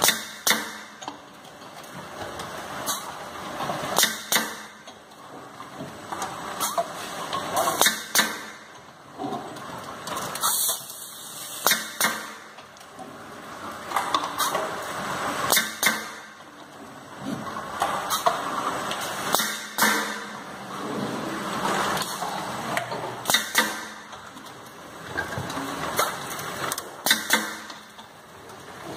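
Automatic soda bottle filling machine running: sharp metallic clacks every second or two over a hiss that swells and fades every few seconds.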